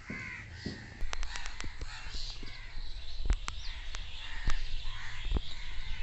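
House crows cawing in the background, with a scattering of sharp clicks and taps from about a second in, loudest around the middle.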